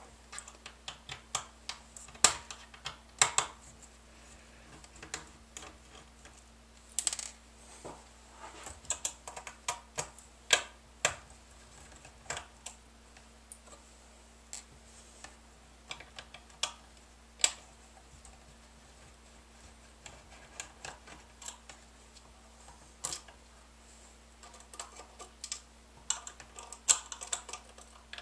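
Irregular small clicks and taps of a screwdriver working tiny screws out of a Lenovo V570 laptop's plastic screen bezel, with the bezel and screws being handled. The clicks come in clusters of several a second and thin out in the middle.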